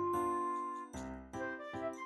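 Instrumental background music: a melody over sustained chords, with the chord changing about halfway through.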